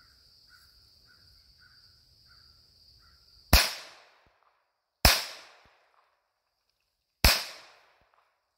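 Three .22 LR pistol shots from a Ruger SR22 firing Remington Golden Bullet 36-grain hollow points, about a second and a half and then two seconds apart, each sharp crack dying away quickly. Before the first shot there is a faint steady high buzz with short repeated chirps.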